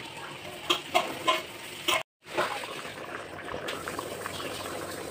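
A metal spoon knocking and scraping against a metal pot while stirring a thick egg gravy, a few sharp clinks in the first two seconds. After a brief break, the gravy simmering and bubbling with a steady hiss.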